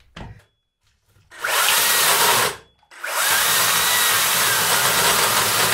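Makita 36 V cordless electric chainsaw running in a short burst of about a second, stopping briefly, then running steadily as it cuts into a log of dry apple wood.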